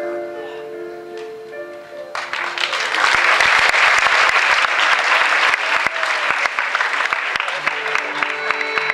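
Audience applauding, breaking out about two seconds in as sustained music notes fade, swelling and then thinning out, with soft music returning near the end.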